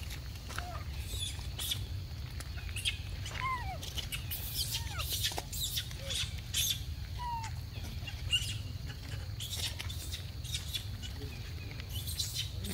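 Dry leaf litter crackling and rustling under footsteps, with a few brief squeaky chirps scattered through and a steady low rumble underneath.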